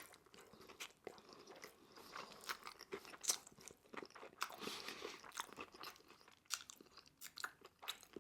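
Close-miked eating: faint, repeated crunches and chewing of crispy Korean fried chicken, many short crunches throughout.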